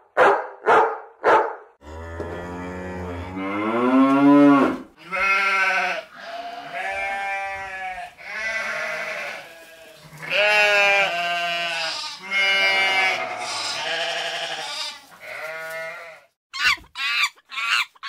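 A string of farm-animal calls. A few short sharp calls come at the start, then a long call rising in pitch about two seconds in. A run of wavering calls about a second each follows, and quick short calls come near the end.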